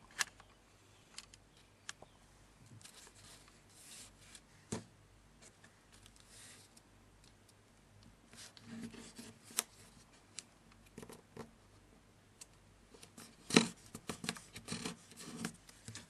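Origami paper being handled and folded by hand: scattered crisp rustles, crinkles and small creasing snaps, with the loudest crackle near the end.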